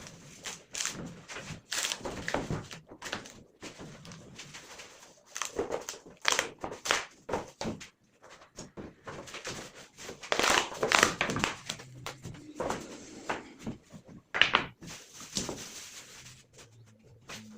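Wooden strips being handled and worked by hand: irregular knocks and clatters of wood on wood, with a few longer scraping stretches.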